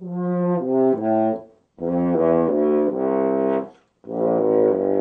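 French horn played in its low register: three short phrases of low notes moving stepwise, mostly downward, with brief breaths between them. Its low tone is not very powerful.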